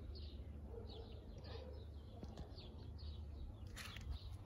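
Small garden birds chirping faintly: a string of short, falling chirps, two or three a second, over a steady low background rumble, with a brief scratchy noise near the end.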